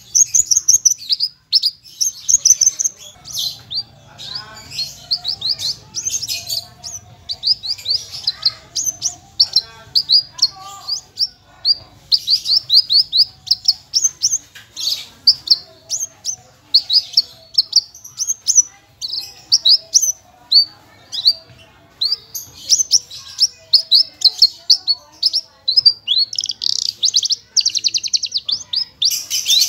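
Javan bush lark (branjangan, parva race) singing a long, non-stop song of quick, high, downward-slurred notes, several a second, with a denser buzzy trill a few seconds before the end.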